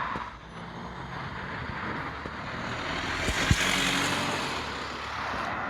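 A road vehicle's engine running with road noise that swells to a peak about three and a half seconds in, with a single knock near the peak, as the vehicle passes close by.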